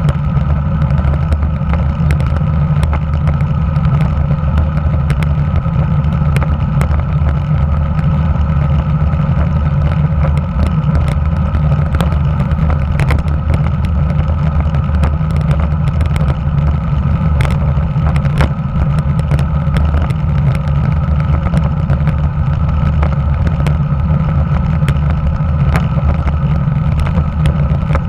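Wind noise and road vibration picked up by a handlebar-mounted camera on a road bike rolling over asphalt: a steady, loud low rumble, with scattered faint clicks from bumps and cracks in the road surface.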